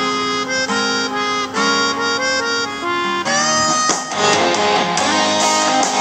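Background music: the instrumental intro of a Mandarin pop song, a harmonica melody over guitar, with a fuller band coming in about three seconds in.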